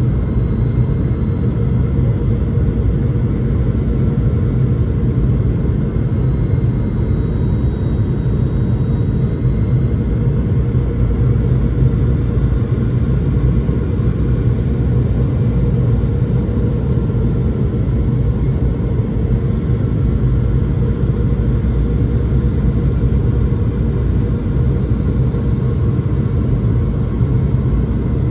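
Steady cabin noise inside a Boeing 717-200 airliner on approach: a loud, even rumble of airflow and the rear-mounted Rolls-Royce BR715 turbofans, with a faint high whine above it.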